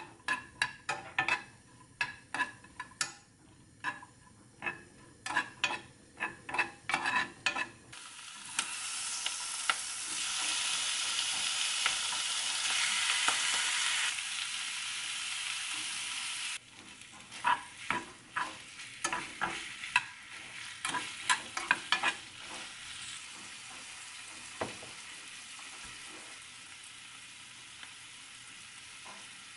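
Food stir-frying in a frying pan. For the first several seconds a spatula scrapes and knocks against the pan in quick strokes. Then there is a loud, steady sizzle for several seconds, another run of stirring strokes, and a quieter, even sizzle to the end.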